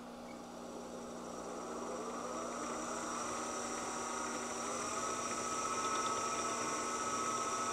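NPC brushed DC drive gearmotor from a combat robot running in reverse on a bench power supply: a whine that rises in pitch and loudness as it spins up over the first few seconds, then holds steady. A tick is barely audible this way round; because it is much clearer in the other direction, the owner puts it down to something probably in the gear set rather than a loose armature winding.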